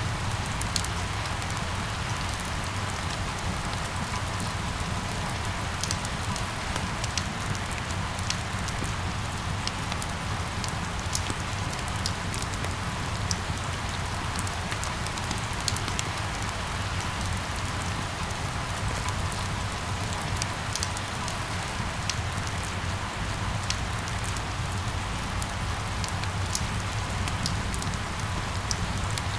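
Steady rain falling, with many individual drops ticking over an even hiss and a low, steady rumble underneath.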